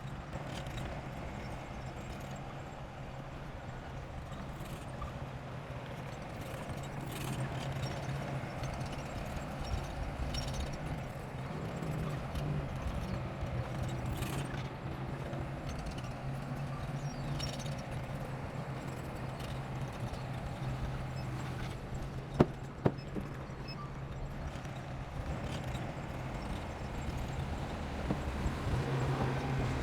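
Bulldozer's diesel engine running steadily under load with irregular clanking and clattering, likely from its steel tracks. Two sharp knocks come close together about two-thirds of the way through.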